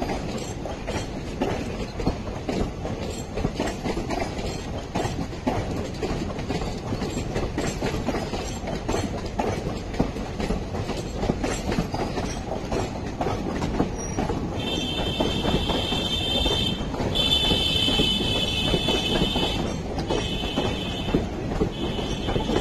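Indian Railways passenger coaches rolling past with a steady rumble and rapid clickety-clack over the rail joints. From about two-thirds of the way in, a high metallic wheel squeal sets in, breaking off and returning several times.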